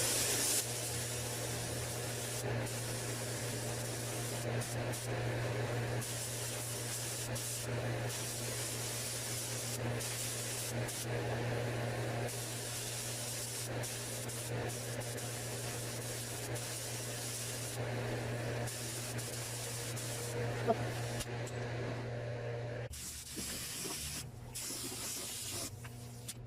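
Paint spray gun hissing steadily as a second coat of base coat is sprayed onto a truck's rocker panel, with a steady low hum underneath that cuts off near the end.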